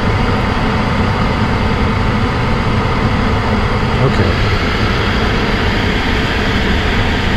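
Gas furnace's variable-speed ECM blower motor running steadily, a loud rush of air with a low hum. The burner flame went out as soon as the blower spun up, which the technician fears could mean a cracked heat exchanger.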